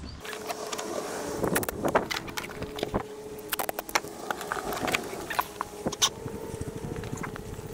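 Clicks, knocks and rustles of hands working on an RC boat's hatch and handling tape, followed by footsteps through dry grass, with a faint steady hum underneath.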